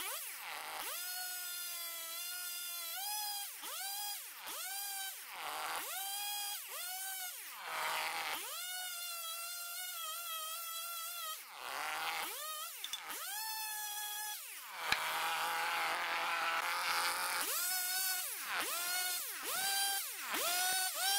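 Stihl two-stroke chainsaw ripping lengthwise down a standing maple log. The engine is held at high revs in the cut for one to three seconds at a time, and between cuts it is let drop and revved up again, so its pitch rises and falls over and over.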